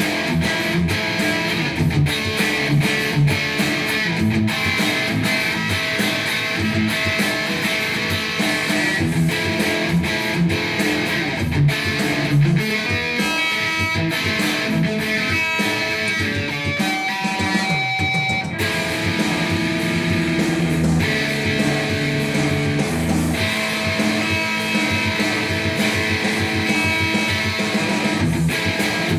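Ibanez electric guitar played solo as an improvised lead, with rapid picked notes running without a break and a few longer held notes a little past the middle.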